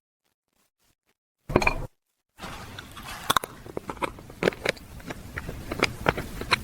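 A crisp snack being bitten: one loud crunch about a second and a half in, then after a short pause a run of small crisp crunches and clicks over a faint hiss, as of chewing.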